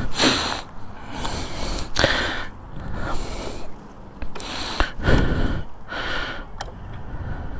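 A person breathing close to the microphone: a series of short huffs and sniffs, with a couple of sharp clicks.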